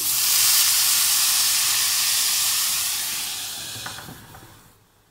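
Water poured into a hot stainless steel pan of frying vegetables, hissing loudly as it hits the hot oil and turns to steam. The hiss starts suddenly and dies away over about four seconds, with a light clink near the end.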